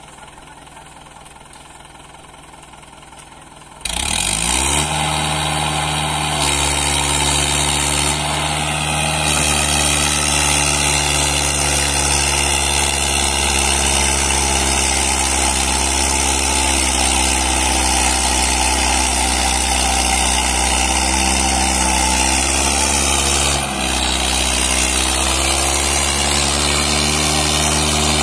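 Mahindra diesel tractor engine ticking over low, then opened up sharply about four seconds in, rising quickly to high revs and held there, running hard as it pulls a heavily loaded sugarcane trailer through soft soil. The revs dip briefly once near the end and pick straight back up.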